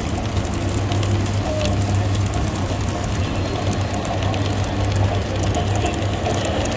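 S gauge American Flyer model freight trains running past on the layout: a steady low electric hum under a continuous rattle and clicking of metal wheels on the track.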